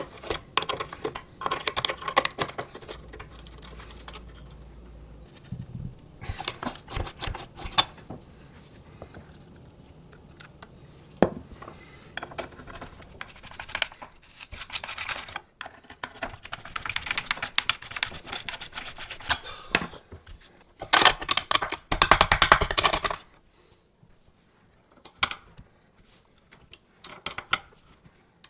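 Metal parts of an antique hand-cranked noodle maker clicking, clinking and rattling as they are handled by hand. The sound comes in several short spells with pauses between them, and the loudest, densest clatter comes about three quarters of the way through.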